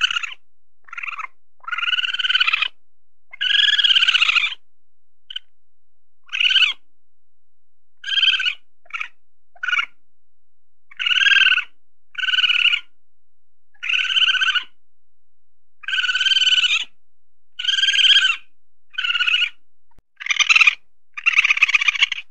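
Weasel calling: a string of high-pitched calls, each under a second long, coming about once a second with a few short pauses, some calls with a fast trill in them.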